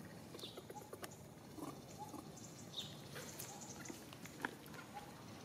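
Faint, short animal squeaks and chirps, scattered and irregular, with a couple of sharp clicks over a steady outdoor background hiss.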